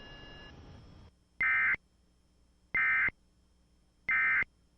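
Emergency Alert System end-of-message code: three short, identical bursts of screechy two-tone digital data about a second and a half apart, signalling the end of the alert.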